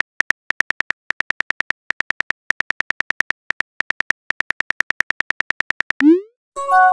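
Texting-app keyboard clicks, a fast even run of about eight ticks a second as a message is typed. Near the end comes a short rising whoosh as the message sends, then a chime of several tones.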